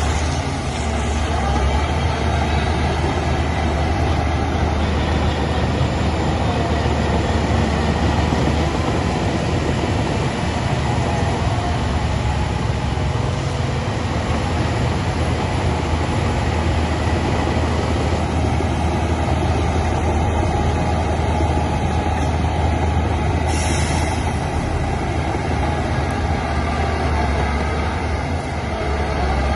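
Heavy diesel earthmoving machinery running steadily: a deep, constant engine drone under broad mechanical clatter. A brief high hiss about three quarters of the way through.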